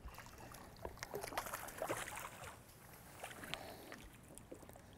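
Faint water noise around a fishing boat, with scattered light clicks and small knocks.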